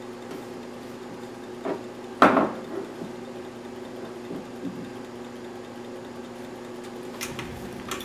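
Objects handled on a wooden tabletop: one sharp knock about two seconds in, just after a lighter click, and a few faint clicks near the end, over a steady low hum.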